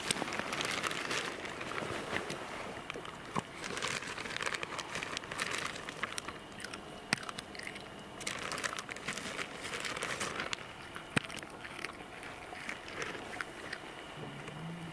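Cats at a pile of freshly caught small fish: irregular crunching and crackling, a burst every second or so, with a few sharp clicks.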